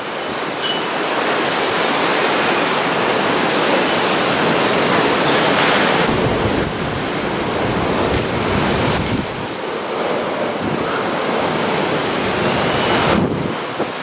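Typhoon wind with heavy rain: a loud, steady rushing noise that swells and eases in gusts.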